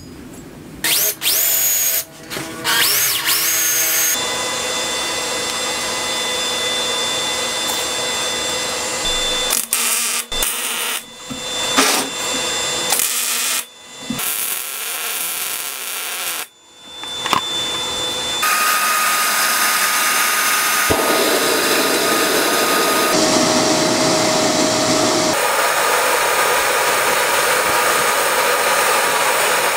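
Metalworking shop sounds in sequence: a drill running into a steel plate, then electric welding crackling as a steel die is welded onto its base plate, and finally a long steady rushing noise while the die is heat-treated and quenched in a bucket of oil that flares up.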